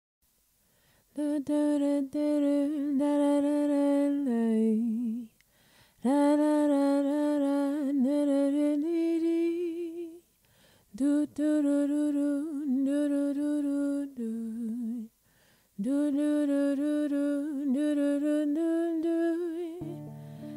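A single voice humming a slow wordless melody unaccompanied, in four phrases of about four seconds, each ending on a lower wavering note before a short pause. Instrumental accompaniment comes in near the end.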